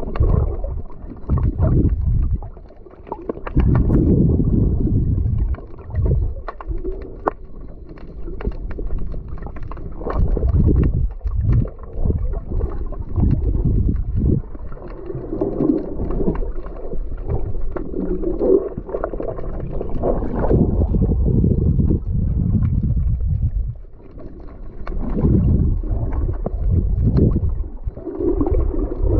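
Water sloshing and gurgling with a low rumble that swells and falls back every few seconds, with scattered small clicks.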